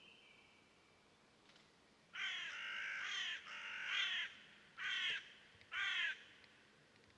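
A bird calling loudly four times from about two seconds in: two longer calls, then two short ones about a second apart.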